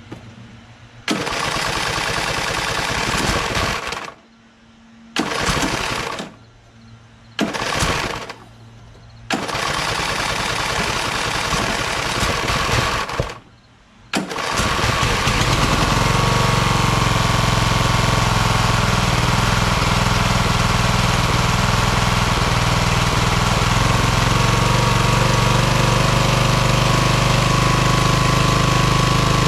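Craftsman LT1000 lawn tractor engine being cranked by its starter in four separate tries over about 13 seconds. On the fifth try it catches and settles into a steady run. With a freshly fitted battery it now starts, which the owner takes as a sign that a weak battery was the whole problem.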